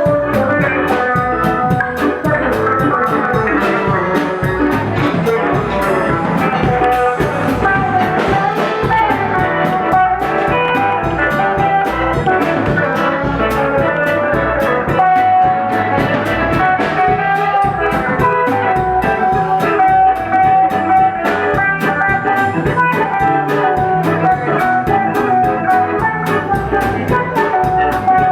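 Live rock band playing an instrumental jam: drum kit keeping time under sustained electric guitar lead lines, with no singing.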